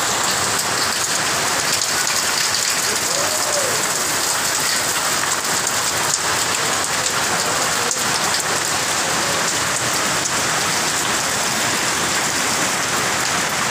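Heavy rain pouring down steadily in a dense, unbroken hiss, with a few sharp ticks of drops striking.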